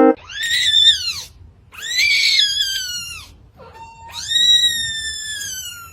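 Cat meowing loudly: three long, high drawn-out cries, each rising then falling in pitch, the last the longest.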